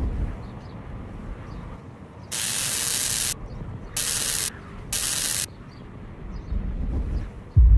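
Three sharp hissing bursts over a low dark rumble: the first lasts about a second, the next two about half a second each. A deep, loud boom hits just before the end.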